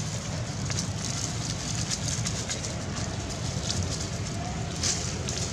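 Dry leaves and twigs crackling and rustling in scattered snaps as young monkeys scramble over them, over a steady low background noise.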